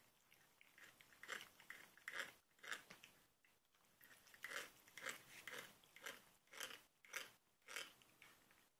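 Cat grinding its teeth: a run of faint, crunching grates, about two a second, with a short break partway through.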